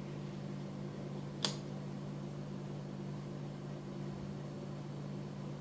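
Steady low hum in the room, with a single sharp click about one and a half seconds in.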